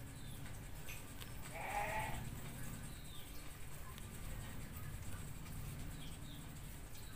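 A short animal call, about half a second long, about two seconds in, over a steady low background hum.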